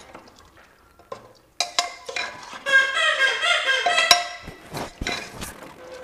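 Metal ladle stirring mutton curry in a pressure cooker, scraping and knocking against the pot with several sharp clinks. About midway a high, wavering pitched sound runs for about a second and a half and is the loudest part.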